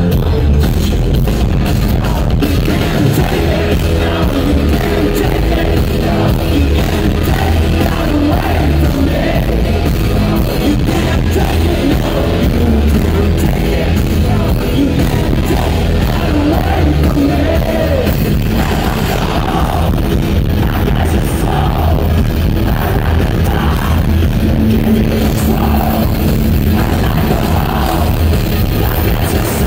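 Live rock band playing loud on stage, with electric guitars, keyboards and drums under a lead singer's vocals, heard from within the audience with a heavy bass end.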